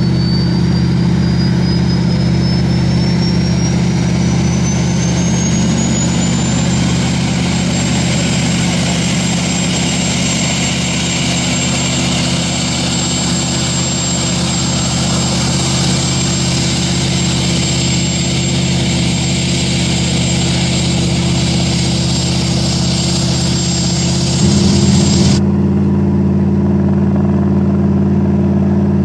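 Race jet boat engine running loud and steady, with a high whine that climbs over the first several seconds and then holds. About 25 seconds in the sound changes abruptly as the high hiss drops away and the low engine note carries on.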